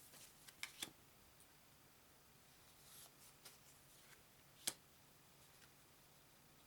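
Faint handling of game cards: a few light clicks and taps, the sharpest about two-thirds of the way in, over a faint low hum.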